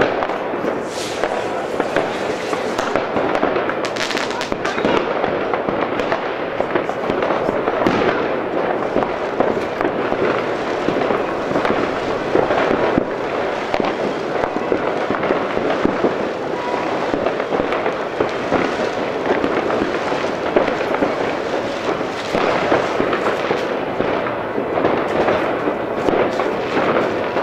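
Many fireworks rockets and firecrackers going off at once across a town, a continuous dense crackle of distant bangs and pops with louder single bangs scattered through it.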